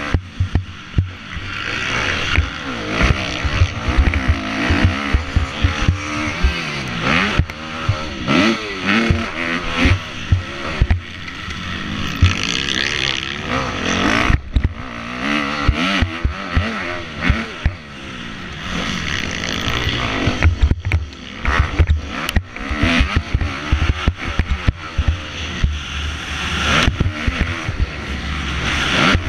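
Kawasaki KX250F four-stroke single-cylinder motocross bike at race pace, engine revving up and falling back over and over through the gears, with heavy wind buffeting on the helmet camera's microphone and repeated knocks from the bike over the bumps.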